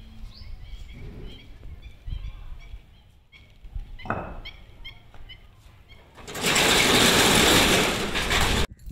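Corrugated metal rolling shutter pulled down by hand, rattling loudly for about two and a half seconds and stopping abruptly as it reaches the ground.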